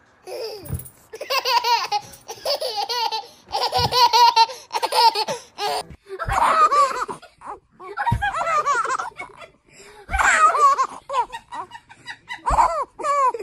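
Baby laughing: a run of high-pitched giggles and belly laughs in short bursts, the later ones coming about every two seconds.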